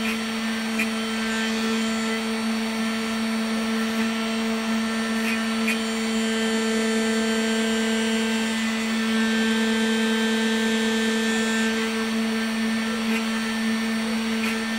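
Homemade CNC router's spindle motor running at a steady pitch with a constant hum, its bit milling a block of carving wax.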